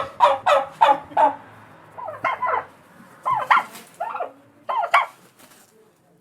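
Dog barking: a quick run of five barks, then several more barks in short, spaced groups.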